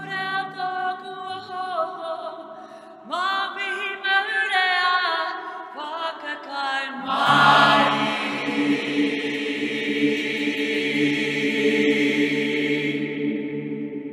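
A choir singing a Māori waiata: two short sung phrases, then a long, full held chord from about seven seconds in that fades away near the end, ringing on in the echoing concrete silo.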